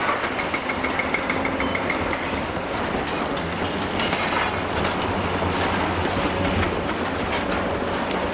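Heavy demolition excavator at work: its diesel engine runs steadily under a continuous clatter and knocking of breaking concrete and falling debris. A pulsing metallic squeal sounds in the first two seconds.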